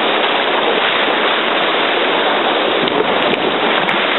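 Steady, loud rush of whitewater in a Grade 2 river rapid around an open canoe, with the splash of paddle strokes in the water.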